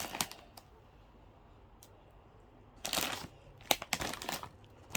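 Plastic snack packets crinkling as they are handled, in short bursts: one at the start and a longer one about three seconds in, with a few light clicks.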